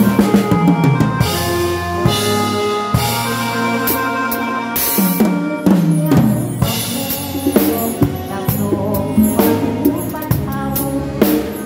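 Acoustic drum kit played with a live band rehearsing Isan music: snare and bass-drum strokes and cymbal crashes over the band's sustained bass and melody lines.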